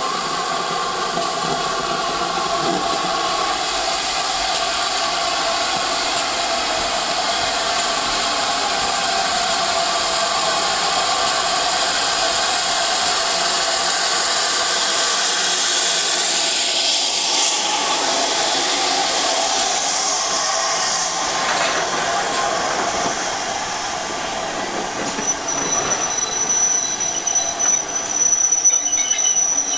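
A train running on the rails with its wheels squealing, a steady drawn-out squeal over the running noise that is loudest in the middle. About 25 seconds in, a higher-pitched squeal starts and the running noise turns uneven.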